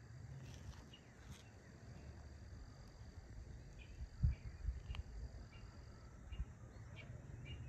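Steady high-pitched insect drone, with scattered faint short chirps over a low rumble. The drone fades out about six seconds in. A thump about four seconds in is the loudest sound.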